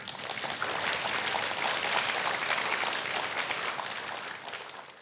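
Large audience applauding steadily, the clapping fading near the end.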